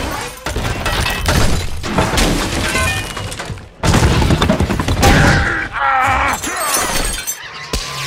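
Film sound effects of giant robots crashing through a building: metal impacts, shattering glass and falling debris. The noise drops out sharply just before four seconds in, then returns loud with screeching metal.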